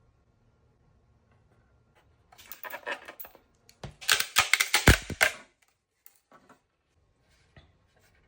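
Rapid clicking and rattling of hard objects being handled, in two bursts about two and four seconds in, the second louder, with a heavier knock within it.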